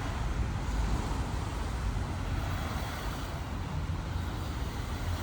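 Steady hiss of rain over a low, even rumble of road traffic.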